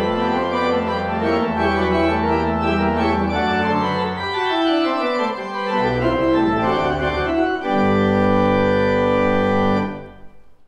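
Pipe organ playing full sustained chords. About halfway through, a run of notes falls in pitch, then a loud final chord is held for about two seconds and released shortly before the end, ringing on briefly as it dies away.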